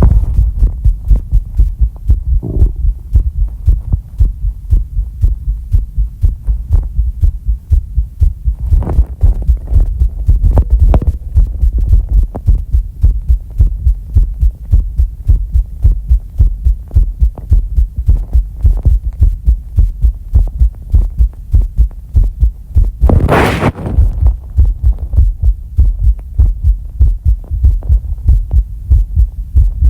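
A person's heartbeat during a breath-hold, picked up close by the microphone as a steady, fast run of low thumps. A short noisy burst comes about three-quarters of the way through.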